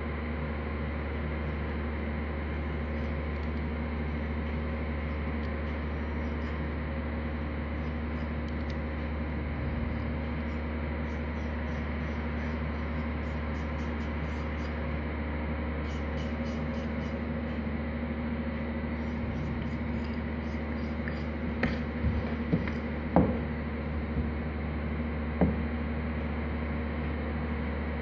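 Steady low hum throughout, with faint fine scratching of a knife shaving a block of plaster. A few sharp knocks come near the end.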